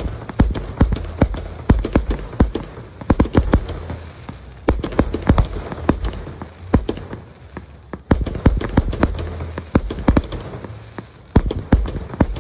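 Fireworks going off in quick succession, a continuous run of sharp pops and bangs, several a second, as shots launch and burst.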